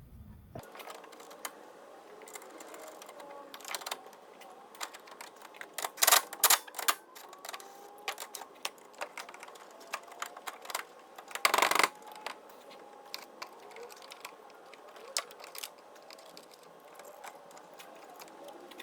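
Irregular clicking, tapping and rattling of hand tools and small metal parts being handled during car wiring work. Two louder clusters of sharp clattering knocks come about six and twelve seconds in.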